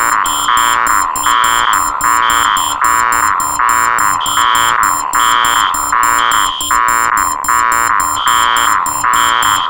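Several electronic alarm tones layered into one loud, unbroken noise: a harsh beep repeating a little over once a second, a higher shrill beep joining on some of the pulses, and a steady low tone underneath.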